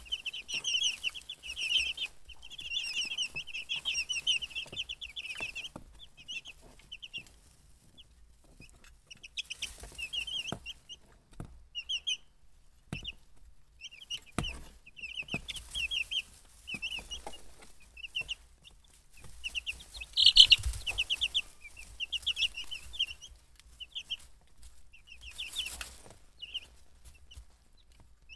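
A brood of young chicks peeping in quick runs of short, high chirps, busiest in the first six seconds and loudest about twenty seconds in, with a few sharp taps in between.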